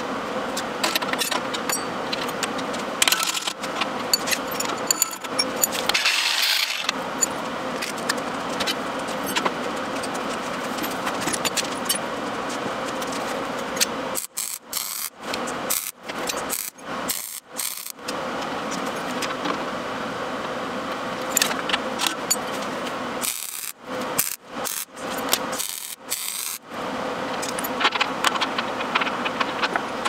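Small steel parts clinking and rattling against a square steel tube as a quick-release bar clamp is worked and chain sprockets on bolts are handled, with many sharp ticks over a steady hum. The sound drops out briefly several times in the middle.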